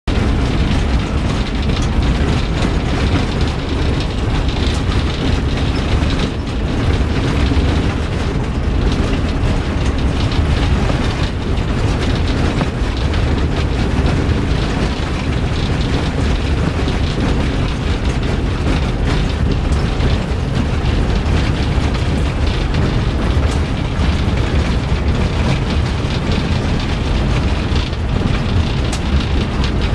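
A vehicle driving on an unpaved road, heard from inside the cabin: a steady, heavy low rumble of engine and tyres, with rattling and a few knocks from the body.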